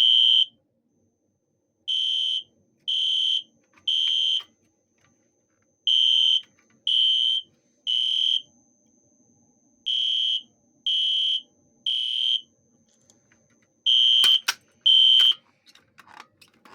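System Sensor SpectrAlert Classic P1224MC fire alarm horn sounding, set off by a pull station: loud, high-pitched blasts in the temporal-three evacuation pattern, three short blasts a second apart and then a pause, repeating. It stops after two blasts of the last group, with a few sharp clicks near the end.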